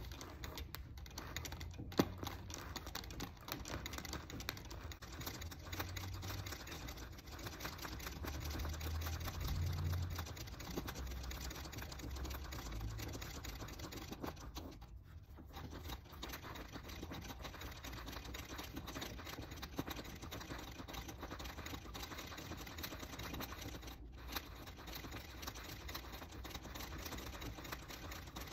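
Treadle sewing machine running in free-motion stitching, its needle working in a fast, even run of ticks. There is a low rumble for several seconds near the start and a brief stop about halfway.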